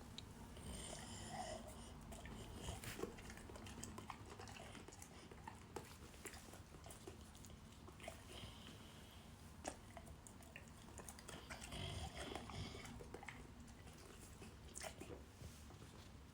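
A dog eating noisily, chewing and biting its food with irregular clicks and crunches, in louder bouts about a second in, around eight seconds and around twelve seconds.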